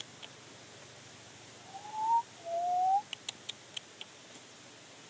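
Two short whistled notes, each rising in pitch, one right after the other about two seconds in, followed by a few faint sharp ticks over a steady background hiss.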